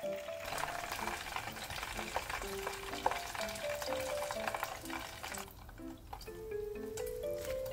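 Battered chicken pieces deep-frying in hot oil, a dense sizzle full of small crackles that dies away about five and a half seconds in. Light background music plays under it.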